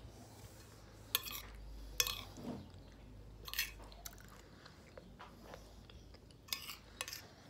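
Metal spoon clinking and scraping against a glass bowl while scooping up stewed beans, about five short sharp sounds spread out, with quiet chewing in between.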